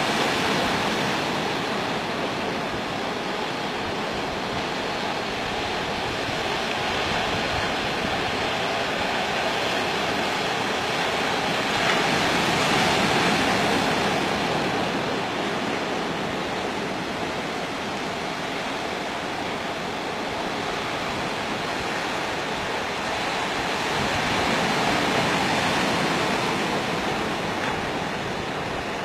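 Sea waves washing onto the shore in a steady rush of surf, swelling louder at the start, about halfway through and again near the end.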